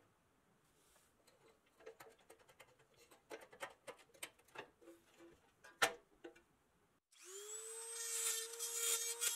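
Scattered light clicks and scrapes of a toy truck's steel wheel being worked on its rusty axle, with one sharp click midway. About seven seconds in, a small handheld rotary tool spins up and runs steadily, its brush scrubbing rust off the wheel hub.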